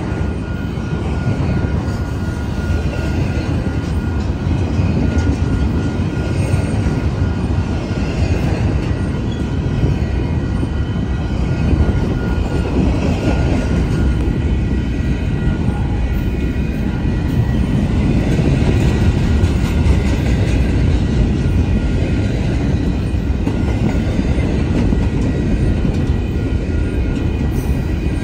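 Union Pacific double-stack intermodal well cars rolling past at close range: a steady rumble of steel wheels on the rails, with a faint high ringing tone held over it.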